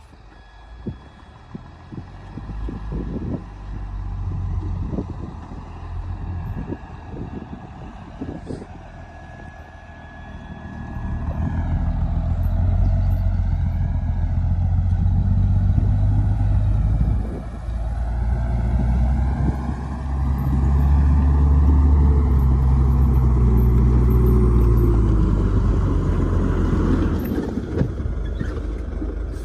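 Heavy diesel engine of earthmoving machinery. It runs more quietly at first, with a few scattered knocks. About a third of the way in it revs up hard and stays loud, its pitch rising and falling as it works under load.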